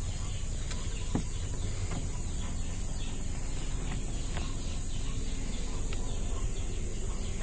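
Steady outdoor background noise: an even high hiss over a low rumble, with a faint click about a second in.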